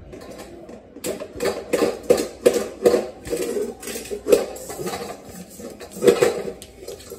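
Stainless steel bowl clattering on a tile floor as babies' hands bang and shove it: a quick, uneven run of metal knocks and scrapes starting about a second in.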